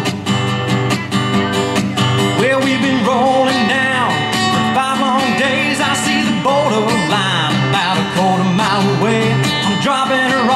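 Live country music, an instrumental break: a Takamine acoustic guitar strummed steadily, with a lead melody over it that slides and wavers in pitch.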